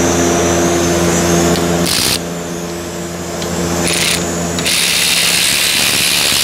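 Electric ratchet spinning out a 10 mm bolt on the rear brake caliper assembly: two short bursts about two seconds apart, then a steady run from about five seconds in, over a steady machine hum.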